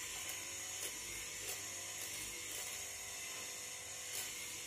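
Bull Tool 750-watt hollow-chisel mortiser running steadily with a high whine while its chisel is lever-fed into a wooden beam, with a few short knocks along the way.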